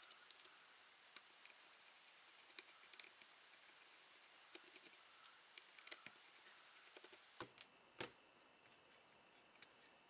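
Faint, irregular small clicks and scrapes of a screwdriver working the screws of a small circuit board in a plastic light-meter case, and the board being handled as it comes loose, with one last click near the end.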